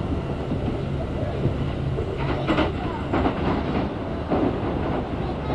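Kintetsu electric train running, heard from inside the passenger car: a steady rumble of wheels on rails, with a few clacks over rail joints between about two and four and a half seconds in.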